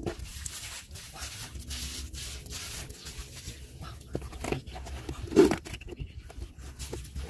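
Bare hands digging and scraping through wet, muddy sand in irregular rubbing strokes, with one louder thump about five and a half seconds in.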